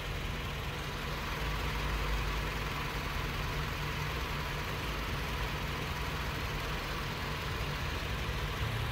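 Vehicle engine idling: a steady low hum with an even hiss over it, unchanging throughout.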